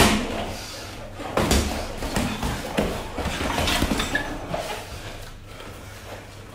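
Kickboxing sparring strikes: kicks with padded shin guards and punches with boxing gloves landing as thuds and slaps. The loudest hit comes right at the start, another about a second and a half in, then a run of lighter hits.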